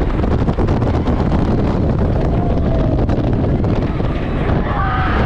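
Wind buffeting the microphone: a steady, loud low rumble, with faint distant voices in the background.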